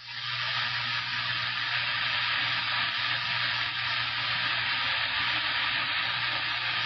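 CB radio receiver hissing with steady static on 27.085 MHz between transmissions, with a faint low hum under it. The hiss dips briefly at the very start, then holds steady.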